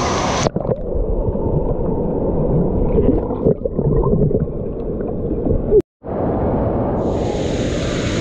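Muffled rushing and gurgling water at a water park, with a few faint warbling tones. The sound changes abruptly about half a second in and drops out briefly about six seconds in.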